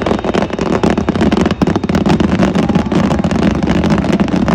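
Fireworks finale barrage: a loud, dense, rapid run of overlapping bangs and crackles, many per second without a break.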